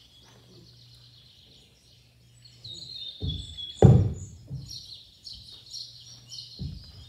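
Birdsong chirping, played as a nature-sounds recording, with two thumps about three and four seconds in, the second loud.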